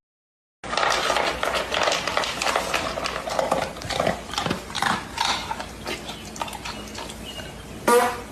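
A dog making close, irregular noises right at the microphone, with a short pitched cry near the end.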